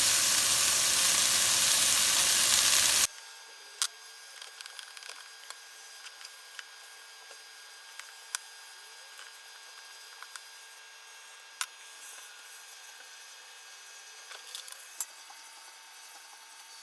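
Food frying in a pan with a steady sizzle, which cuts off abruptly about three seconds in. After that only faint hiss with a few scattered small clicks.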